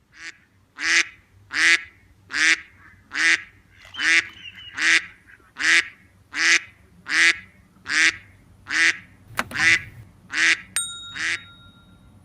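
A duck quacking over and over in a steady rhythm, about one quack every 0.8 seconds. There is a sharp click about nine seconds in.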